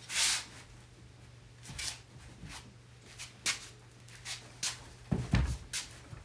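Handling noises: scattered short rustles and light knocks, with a louder rustle right at the start and a few dull thumps about five seconds in, over a faint steady hum.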